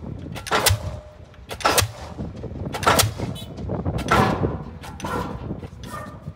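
Crane-hung pile hammer driving a concrete sheet pile: heavy blows about once a second, each a deep thud with a sharp ringing crack, six in all, the last two weaker.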